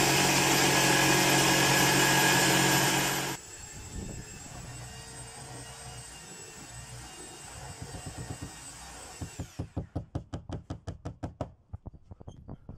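A loud, steady electric motor drone that cuts off abruptly about three seconds in. Then a quieter steady background, and from about ten seconds in a fast, regular series of sharp taps, roughly six a second.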